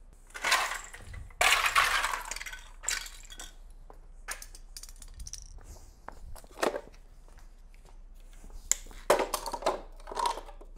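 Plastic Depo aftermarket taillights being smashed apart on cobblestone paving: several irregular bursts of cracking, crunching plastic, the loudest about a second and a half in, with smaller clicks and clatters of pieces between and another run of crunching near the end.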